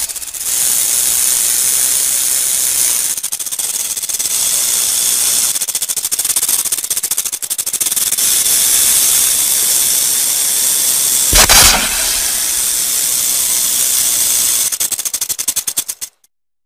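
Rattlesnake shaking its tail rattle: a steady, rapid dry buzz with a brief louder surge about eleven seconds in. Near the end the buzz breaks up into separate clicks and then stops suddenly.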